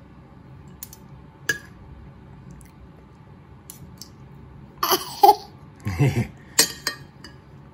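Quiet room with a few small clicks, then about five seconds in a short burst of babbling followed by another lower vocal sound, and a run of sharp little clicks near the end.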